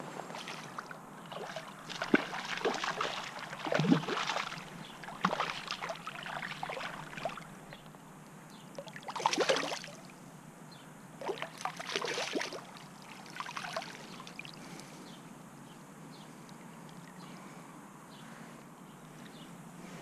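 Brown trout thrashing and splashing at the surface while it is scooped into a landing net, in irregular bursts of splashing through the first dozen or so seconds, then only a faint steady hiss.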